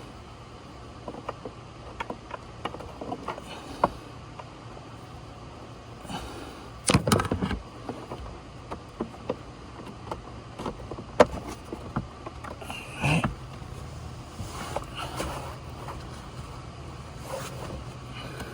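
Scattered clicks and taps with a short louder clatter about seven seconds in: hands and tools handling small plastic parts and fasteners under a car's dashboard.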